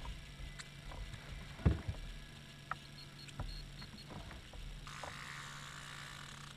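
Scattered light knocks and clicks of gear in a boat, with one louder thump about two seconds in, over a low steady hum. A soft rush of hiss comes in near the end.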